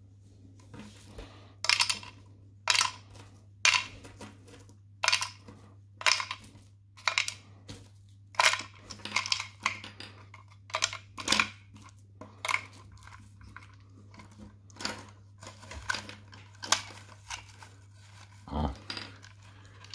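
Small pieces of Seachem Matrix filter stone clicking and clattering as they drop one after another into the hard clear plastic chamber of a mini hang-on cascade filter, about one sharp click a second. A duller plastic knock comes near the end as the filter's parts are fitted together.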